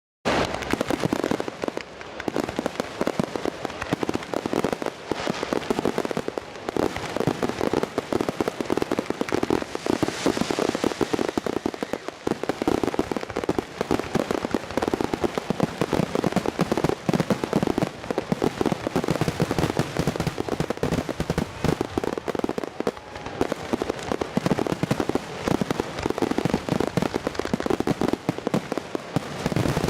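Fireworks going off in a rapid, continuous barrage of bangs and crackling.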